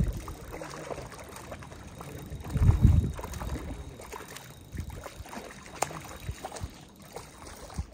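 Wind buffeting the microphone in two low rumbles, one right at the start and one about two and a half seconds in, with faint scattered clicks in between.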